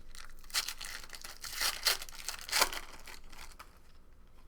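Trading card pack wrapper being torn open and crinkled by hand, with a few loud rips in the first three seconds, then quieter rustling.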